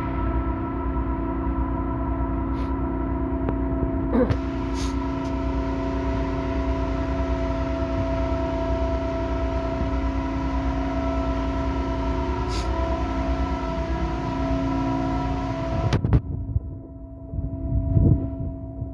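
Steady hum of a ship's engines and deck machinery underway, several held tones over a low rumble. About three-quarters of the way through the higher part cuts off suddenly, and two short thumps follow.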